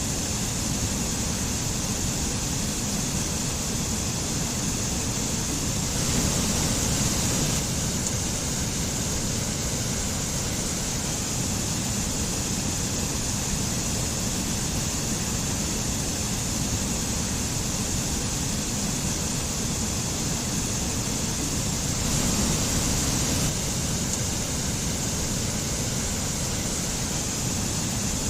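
Mountain stream and waterfall rushing steadily, swelling slightly twice: about six seconds in and again about twenty-two seconds in.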